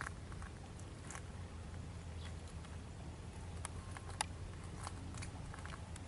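Steady, faint low drone of a Kubota L4508 tractor's four-cylinder diesel engine heard from a distance as it works a flooded paddy on cage wheels, with a few sharp clicks over it.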